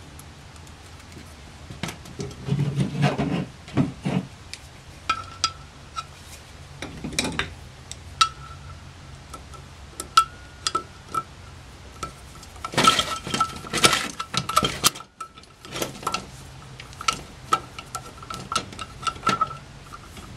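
Small metal clinks, taps and scrapes as a screwdriver turns a brass main jet into the float bowl of a Rochester Monojet one-barrel carburetor, with the casting handled on a sheet-metal workbench. A denser burst of clatter comes past the middle.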